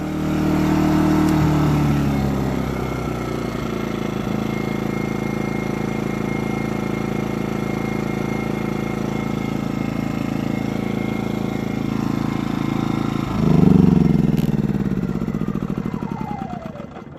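Predator 2000 inverter generator's small single-cylinder engine running under a heavy load from a plugged-in space heater. Its speed surges at first, then settles into a steady run. About 13 seconds in it revs up sharply, then winds down, falling in pitch and fading near the end.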